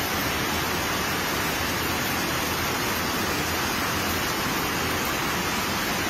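Heavy hail and rain falling hard, a steady, even noise with no single impacts standing out.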